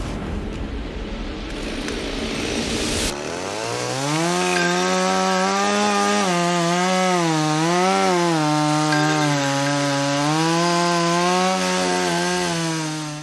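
Chainsaw at full throttle cutting into wood, after a few seconds of rough rasping. Its pitch rises as it speeds up, then dips again and again as the chain bogs down under load.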